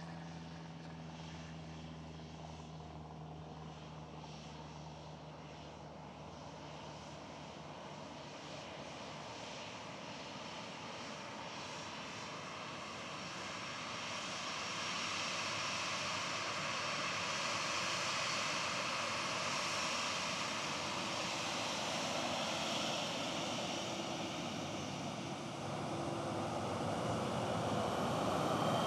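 Jet airliner on approach, its engine noise growing steadily louder as it comes nearer, with a rising engine whine near the end. A low steady hum fades out over the first several seconds.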